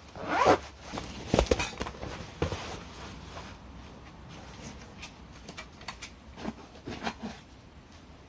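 Gloved hands handling a padded fabric carry bag: rustling cloth and a few dull knocks, loudest in the first couple of seconds, then lighter rustles and small taps.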